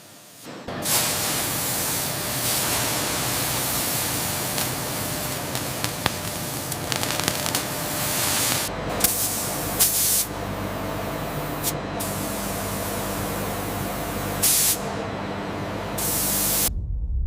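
Laser cutting machine hissing loudly and steadily as it cuts metal, with a faint machine hum underneath and a few brief sharper spits. The hiss starts about a second in and cuts off abruptly near the end.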